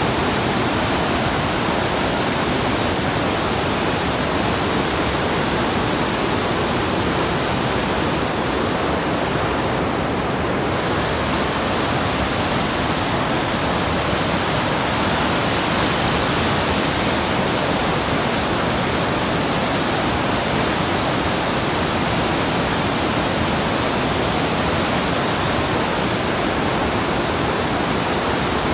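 Steady rushing noise of a river in flood, fast floodwater churning in heavy standing waves. The hiss thins briefly about ten seconds in.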